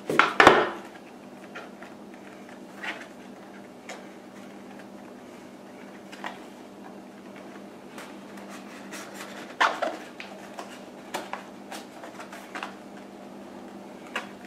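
White cardboard box and its inner sections being handled: a burst of scraping and knocks at the start, then scattered soft taps and rubs. A steady low hum runs underneath.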